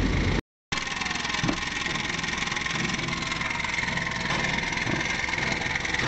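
Hadley air horn compressor running steadily as it pumps up the air tank, with a constant whine over a mechanical hum. The sound cuts out completely for a moment about half a second in, then resumes.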